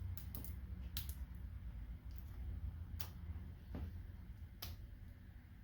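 A handful of small, sharp clicks and taps, irregularly spaced, from handling the laptop display's ribbon cable connector and plastic parts, over a low steady hum.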